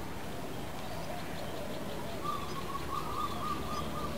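Birds calling: a wavering whistled call from about halfway in, with short curving calls and faint high chirps around it.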